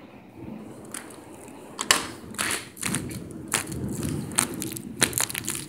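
Rainstorm with a steady low rush, broken from about a second in by many irregular sharp knocks and crackles.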